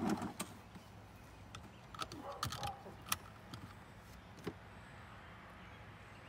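Golf cart seat belt being pulled across and buckled: a few sharp clicks and rustles spread over the first four seconds or so, with low murmured voices.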